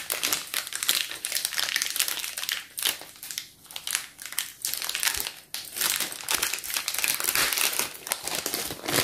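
Clear plastic packaging crinkling as it is handled and pulled open, in a continuous run of irregular crackles.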